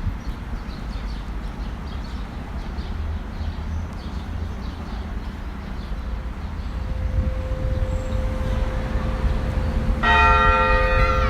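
Low outdoor rumble, then an Armenian church bell struck loudly about ten seconds in, ringing on with several steady tones. A faint steady tone comes in a few seconds before the strike.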